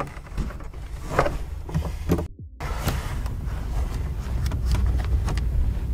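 Clicks and knocks of tools working a bolt on the trunk-floor bracket. After a short cut-out about two seconds in, a steady low rumble follows, with scattered clicks.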